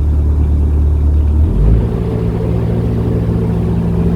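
Narrowboat engine running steadily, then picking up to a higher speed about a second and a half in.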